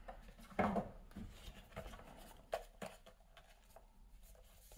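Cardboard box parts being handled: a few short scrapes and taps of cardboard, the loudest about half a second in.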